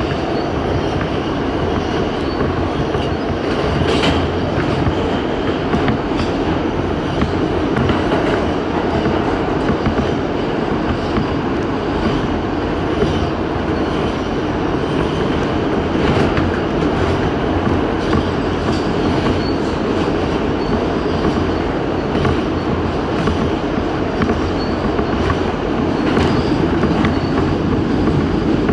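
New York City Subway A express train running at speed: a steady, loud rumble of steel wheels on the rails, with occasional sharp clicks as the wheels pass over rail joints, about 4 s and 16 s in.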